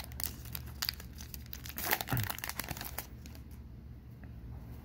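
Plastic wrapper of a Topps 2020 Heritage baseball card pack being torn open and crinkling in the hands. The crinkling is busiest for about the first three seconds, then dies down to light handling.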